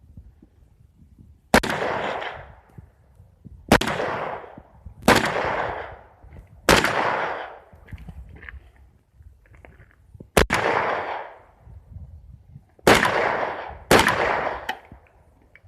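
AKM rifle (7.62×39 mm) fired in single deliberate shots, about eight in all, spaced one to three seconds apart, with two in quick succession about two-thirds of the way through; each shot rings out and fades over about a second.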